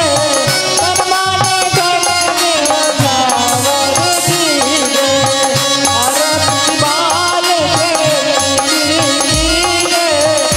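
Hindi devotional aarti sung live: a solo voice over steady held notes, with a hand-drum beat and jingling percussion keeping the rhythm.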